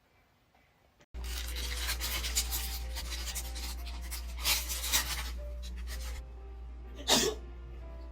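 A person having a nasal swab taken: breathy rustling and sniffing, then one short, loud sneeze about seven seconds in, over a steady low hum.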